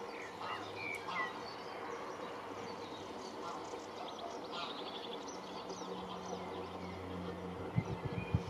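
Birds chirping and calling, short high notes scattered over a steady outdoor background. A low steady hum comes in about halfway through, and a few dull thumps sound near the end.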